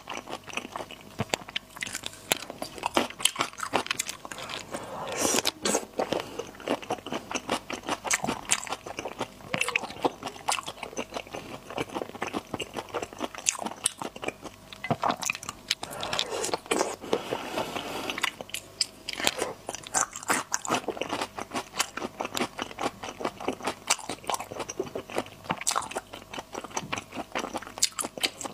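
Wet, close-miked chewing of marinated raw shrimp in chili sauce: a dense run of smacking and crunching bites, with a couple of longer sucking slurps, about five seconds in and again around sixteen to eighteen seconds in.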